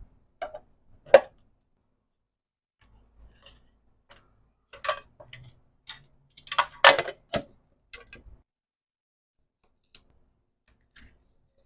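Small items being handled while packing an order: scattered light clicks and taps, one sharp click about a second in, and a busier spell of clicking and rustling a little past the middle.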